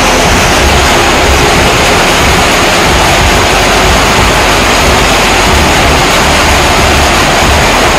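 Muddy floodwater pouring in a torrent through a window grille and cascading down, a loud steady rush of water.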